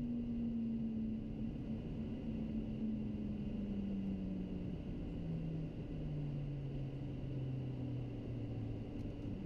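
Cockpit noise of a private jet slowing on the runway after landing: a steady hum and faint whine, with a low tone that drops steadily in pitch as the aircraft decelerates.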